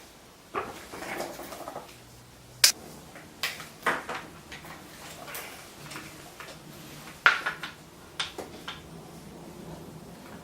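Scattered knocks, taps and clatter of hard parts and tools being handled, with two sharp clicks standing out, about a quarter of the way in and again about two-thirds of the way in.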